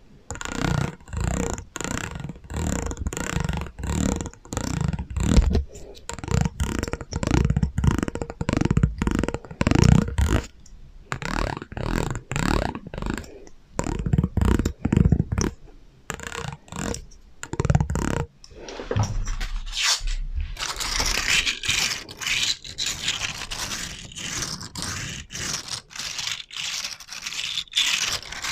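Rapid scraping and scratching strokes on an object, several a second, with an echo effect added. About 20 seconds in they turn brighter and hissier.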